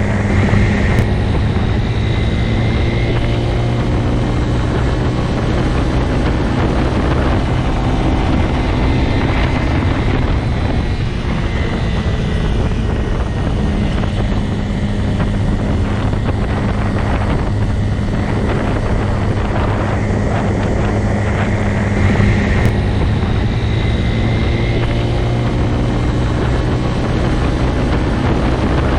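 Motorcycle engine running steadily at near-constant revs, a deep pulsing note with little change in level.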